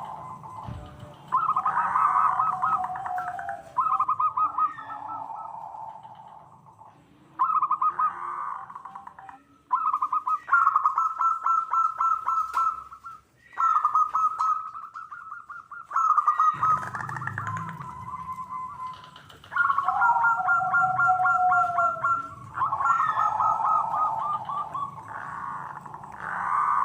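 Zebra doves (perkutut) cooing: repeated phrases of rapid trilled coos, one after another with short gaps, several overlapping at times.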